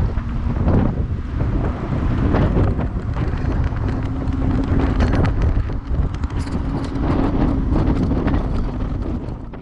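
Wind buffeting a GoPro's microphone mounted on the front of a moving electric fat bike, over the bike's steady rumble and small rattles from the path. A faint steady hum runs through the second half.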